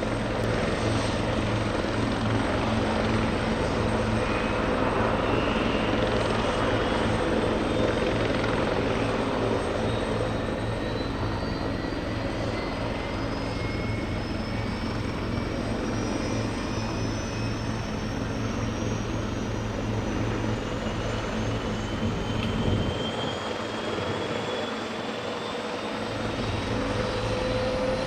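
Eurocopter AS332L1 Super Puma helicopter's twin turbine engines and main rotor running: a steady low rotor beat under turbine whines that rise slowly in pitch.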